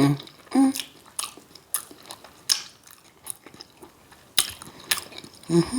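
Close-miked chewing of a crab cake with repeated wet lip smacks and mouth clicks, broken by a few short hummed "mm" sounds.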